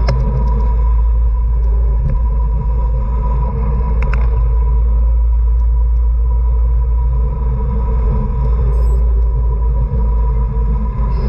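Wind buffeting the microphone of a bicycle-mounted camera during a road race, a loud steady low rumble, with a faint steady high tone and a few light clicks from the bike.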